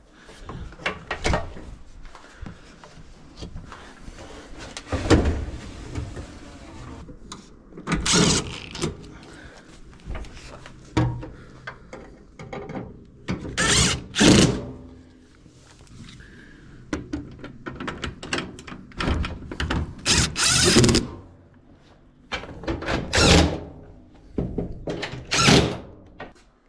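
Repeated knocks, clunks and rattles of a Whirlpool Duet dryer's metal cabinet and parts being handled during reassembly, with several short, louder bursts of noise.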